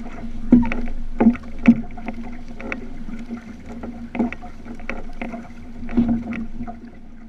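Water rushing and slapping along the hull of a moving outrigger canoe, under a steady low hum, with sharp splashes and knocks from the paddle strokes: the loudest about half a second in, twice more within the next second, and again about six seconds in.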